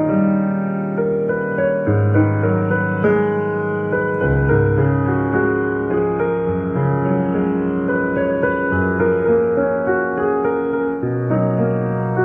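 Background music: a piano or electric-piano piece playing sustained notes and chords.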